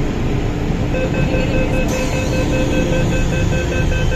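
Rapid door-closing warning beeps of an MTR train, starting about a second in, over the steady rumble of the train standing at the platform.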